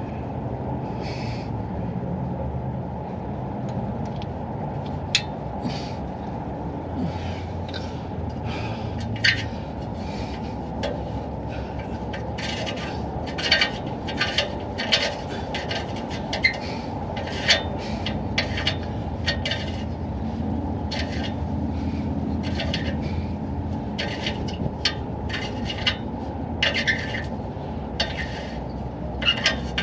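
Short, irregular metallic scrapes and clicks, roughly one a second, as an old oxygen sensor is unscrewed and worked out of the truck's exhaust pipe. A steady low rumble runs underneath.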